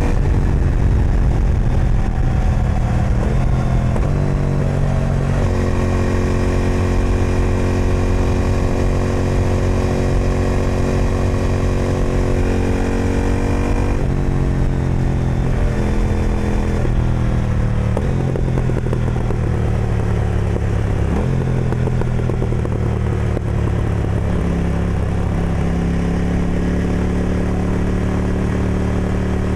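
KTM Duke 990's twin-cylinder engine through an Austin Racing aftermarket exhaust, ridden on the road. The engine note holds steady for stretches and jumps or falls in pitch several times as the rider changes gear and opens and closes the throttle.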